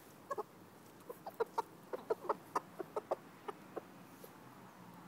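Chickens clucking: a quick, uneven run of about fifteen short clucks over nearly four seconds.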